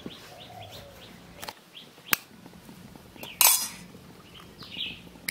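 A hen's egg is knocked against the rim of a steel bowl: two sharp taps about a second and a half and two seconds in, then a short crackle about three and a half seconds in as the shell breaks. Birds chirp faintly in the background.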